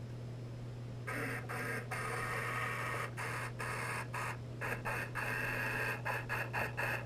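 A toy's small electric motor whirring in stop-start bursts, heard underwater, over a steady low hum. It starts about a second in and cuts in and out more and more rapidly toward the end.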